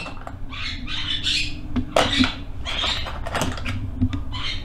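Hand rummaging through a plastic toolbox tray, metal screwdrivers and bits clattering and scraping against the plastic in a run of irregular short rattles and clicks, over a steady low hum.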